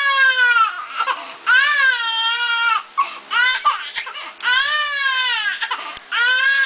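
A young infant crying hard in repeated long wails, each about a second, broken by short gasps for breath.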